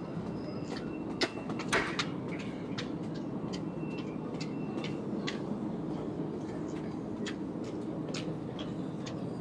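Footsteps climbing metal-treaded stairs, sharp taps about two a second, over the steady low hum of a station concourse.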